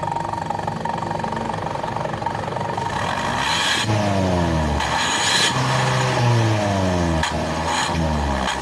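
Car exhaust fitted with a bolt-on 'suos ngorok' tip, giving a deep growling, snoring exhaust note. The engine idles steadily, then is revved three times from about three and a half seconds in, the note falling back after each blip.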